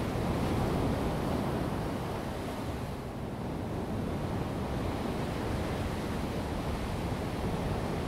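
Ocean waves breaking and surging over a rocky shore: a continuous rush of churning water, a little louder in the first second and easing briefly about three seconds in.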